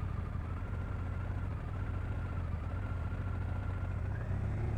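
Touring motorcycle engine running steadily at low speed, a low hum with a thin steady whine that rises slightly about four seconds in.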